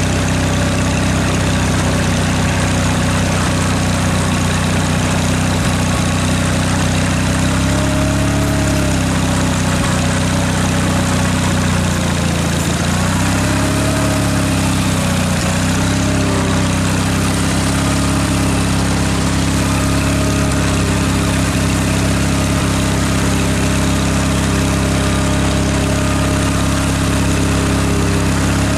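Ford flathead V8 engine of a tractor idling steadily, its speed wavering slightly up and down a few times.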